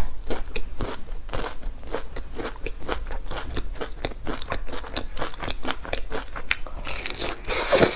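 Close-up eating sounds: crisp food being bitten and chewed, a rapid irregular crunching with a louder crunch near the end.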